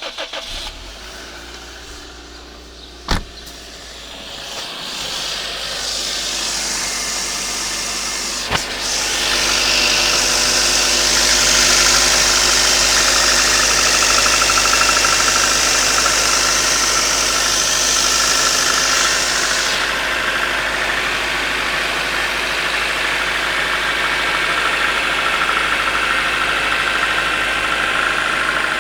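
Toyota 5A-FE 1.5-litre four-cylinder engine idling from a cold start, with a knock that sets in partway through and seems to come from under the valve cover. There is a sharp click about three seconds in and another about eight seconds in, and a hiss comes up about nine seconds in and drops back near twenty seconds.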